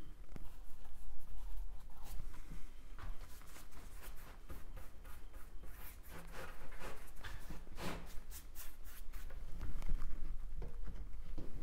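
Paintbrush scrubbing and stroking paint onto a stretched canvas: a run of short, scratchy brush strokes, coming thick and fast in the middle.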